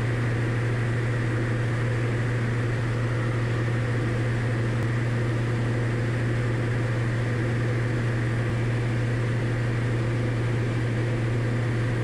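Diamond DA40's engine and propeller droning steadily in cruise flight, heard inside the cabin as a strong low hum under an even rushing noise.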